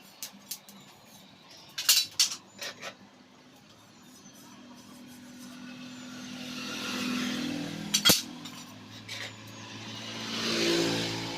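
A few sharp metallic knocks and clinks, the loudest a single strike about eight seconds in. Twice an engine-like sound swells up and fades away, like a vehicle passing.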